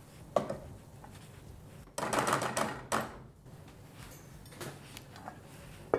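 A spoon clicking and scraping against a small bowl as cooked rice is pressed down into it to mould it. There is a single click, then a quick run of taps and scrapes about two seconds in, and a few faint ticks near the end.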